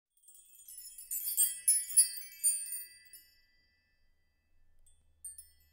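Sparkling chime sound effect: a cluster of high, tinkling bell-like notes that builds over the first second, rings for about two seconds and fades, with a couple of faint tinkles again near the end.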